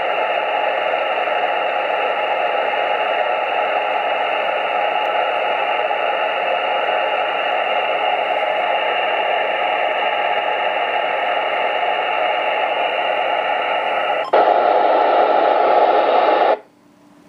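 Icom IC-910H transceiver's speaker giving a steady loud hiss of receiver noise on an empty channel, with no signal in it. About fourteen seconds in, the hiss turns louder and brighter, then cuts off suddenly about two seconds later.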